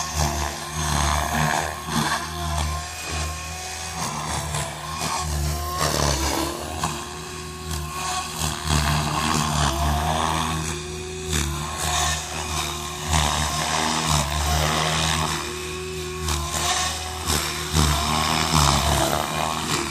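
SAB Goblin 500 electric RC helicopter in low, banked flight: the main rotor blades chop steadily under a motor-and-gear whine whose pitch and loudness rise and fall with the manoeuvres.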